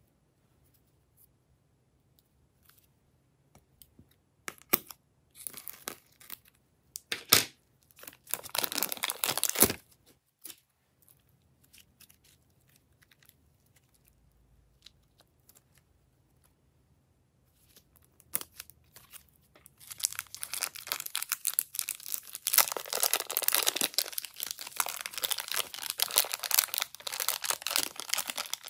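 Thin plastic piping bags crinkling and rustling as thick slime is squeezed and peeled out of them. The sound comes in short bursts during the first ten seconds, goes nearly quiet for several seconds, then turns into a dense, continuous crinkling for the last eight or nine seconds.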